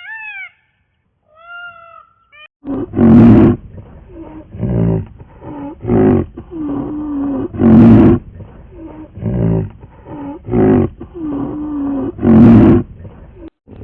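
A cat meows briefly twice, then from about three seconds in a big cat roars in a loud series of deep calls every second or two, with shorter grunts between the strongest roars.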